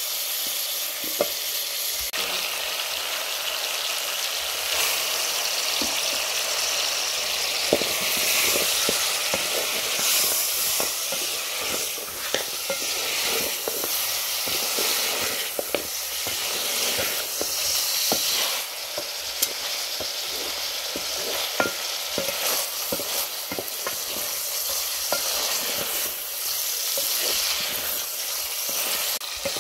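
Smoked beef and onions sizzling as they fry in an aluminium pot. A wooden spatula stirring them scrapes and knocks against the pot in short, irregular strokes.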